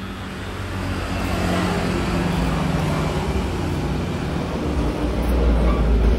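Electric hair clipper running with a steady buzz while blending out lines in a fade. A low rumble swells in about five seconds in and is loudest near the end.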